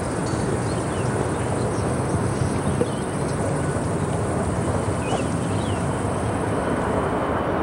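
Steady outdoor background noise, a constant even rushing, with a couple of faint chirps about five seconds in.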